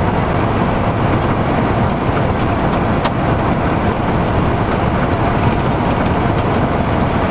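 Scania 112 truck's diesel engine running steadily at road speed in tenth gear, with road and wind noise.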